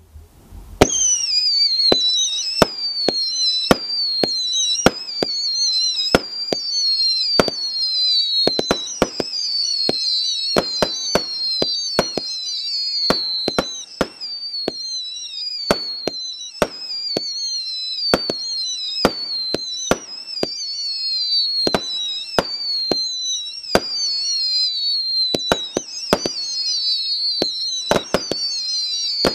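Cutting Edge 'Out Cold' fireworks cake firing shot after shot, starting about a second in. Whistles falling in pitch overlap one another, broken by sharp cracks and bangs about one to two a second.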